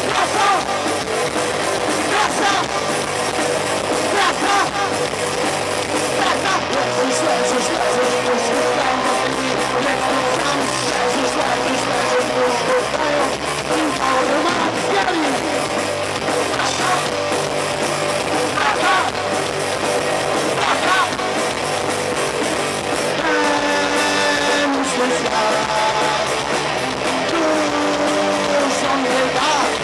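Live punk rock band playing loud through amplifiers: electric guitar and bass, with the singer's voice over them.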